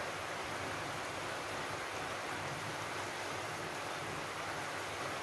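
Fish-head curry simmering in an aluminium kadai over a gas flame: a steady, even hiss.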